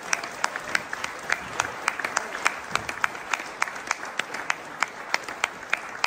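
Audience applauding, with one pair of hands clapping steadily close by, about three claps a second, over the general applause.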